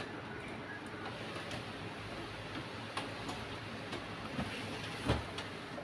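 HP Color LaserJet Pro M176n laser printer, freshly powered, running steadily with faint scattered ticks while it is handled and turned on the desk. A low thump about five seconds in.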